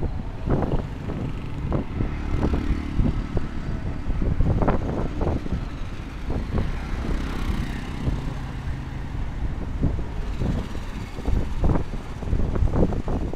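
Street traffic on a busy city avenue: motor vehicles running and passing with a steady low rumble, broken by many short knocks and clatters.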